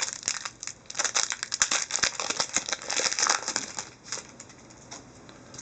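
Hockey card pack wrapper crinkling and rustling as it is handled and opened, a dense crackle that dies away about four seconds in.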